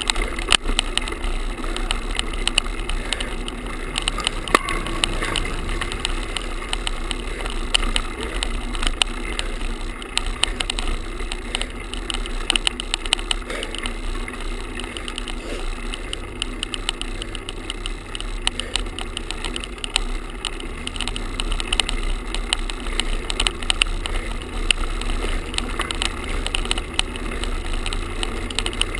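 Buzzing, rattling vibration noise from a GoPro camera tied onto a road bicycle with a shoelace, shaking against its mount as the bike rolls over the pavement, with a steady run of fine clicks throughout.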